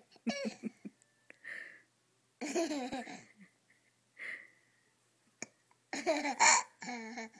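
A young girl with hiccups giggling in three bursts, with short breathy hiccups and gasps between them; the loudest burst comes near the end.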